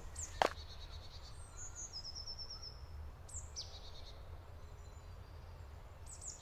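Forest ambience: one crunching footstep on a gravel path about half a second in, then faint birdsong, with a short high trill about two seconds in and a quick falling note a little later, over a steady low rumble.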